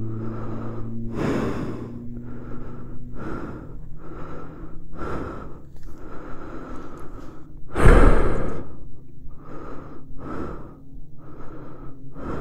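A shaken racing driver breathing hard and fast, with gasps about once a second and one loud gasp about eight seconds in, after his steering column snapped mid-corner. A steady low hum runs underneath, the stopped Formula Vee's engine idling.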